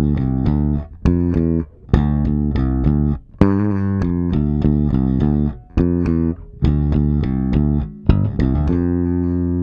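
Spector NS Pulse 5 five-string active electric bass played fingerstyle with both pickups blended: a run of plucked notes in short phrases with brief gaps, closing on a long held note near the end.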